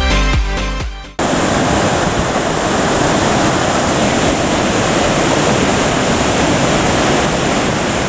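Electronic dance music stops abruptly about a second in, giving way to a steady, loud rush of water.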